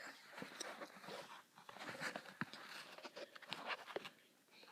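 Close handling noise: rustling with scattered small knocks and clicks as the camera is propped against a nylon sheath.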